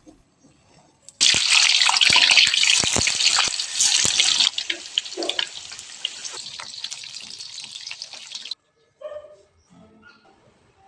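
Water running from a kitchen tap, with scattered light knocks through it. The flow is strong for about three seconds, then softer, and cuts off suddenly a little over eight seconds in.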